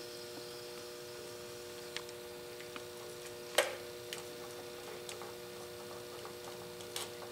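Small sharp clicks and snips of a hand wire stripper working on wire ends, a few scattered through, the sharpest about three and a half seconds in, over a steady electrical hum.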